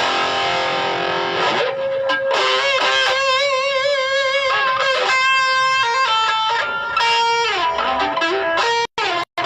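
Electric guitar played through a Mooer GE100 multi-effects processor: long sustained notes with a wavering pitch and slow bends up and down. Near the end the sound cuts out abruptly several times.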